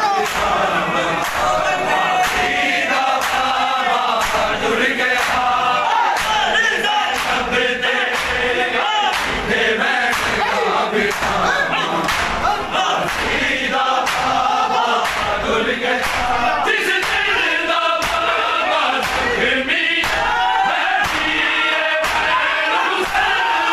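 Men chanting a Punjabi noha in chorus, a mourning lament sung by a crowd, over a steady rhythm of hands slapping bare chests in matam.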